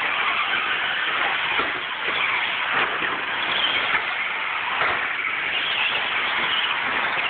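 Several radio-controlled 2WD short-course trucks racing on a dirt track: a steady mix of motor whine and tyres churning the dirt, with a few faint knocks as the trucks land or hit the track.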